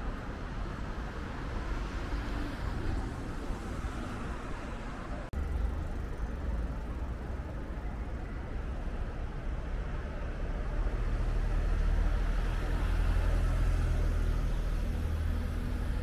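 Steady rumble of city road traffic, louder in the second half. There is a brief break about five seconds in.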